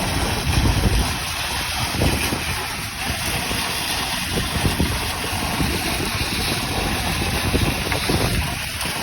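Wind buffeting an outdoor microphone: a steady rushing noise with irregular gusty low rumbles.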